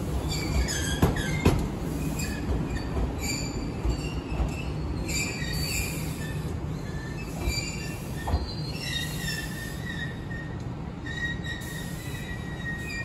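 Iyotetsu 610 series electric train rolling slowly over curved track, its wheels squealing against the rails in scattered high-pitched screeches over a low rumble. There are a few sharp clacks over rail joints about a second in.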